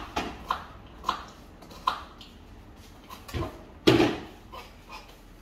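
Scattered kitchen handling noises: a few light clicks and knocks of food, plate and counter being handled, with one louder thump about four seconds in.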